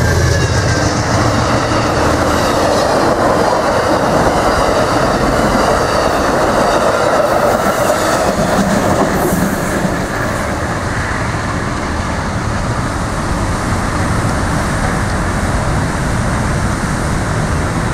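Amtrak passenger train's cars rolling past at speed, a steady loud rumble of wheels on rail that eases slightly about ten seconds in as the train pulls away.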